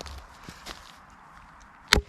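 A few soft footsteps and faint crackles on the woodland floor, then one sharp, loud knock near the end.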